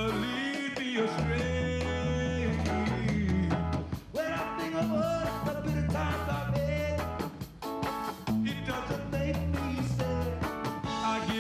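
Live reggae band playing: a steady bass line and percussion under guitar, with a man singing.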